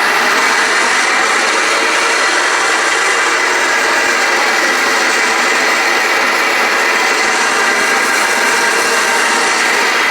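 Homemade propane forge burner firing open with a steady, loud rushing roar. It is running on a 1/8-inch orifice at 20 psi, which is way too much gas and gives a flame of about 48 inches.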